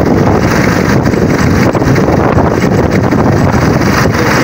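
Strong wind buffeting the microphone, with the fishing boat's engine running steadily underneath.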